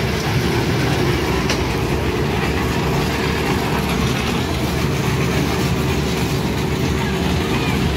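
Children's fairground train ride running steadily around its small circular track, its wheels running on the rails.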